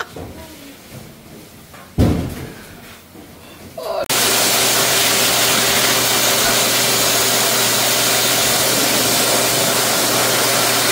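A thump about two seconds in, then a high-velocity pet dryer starts up about four seconds in and runs loud and steady, a strong rush of air over a low motor hum, as it blows on a wet dog.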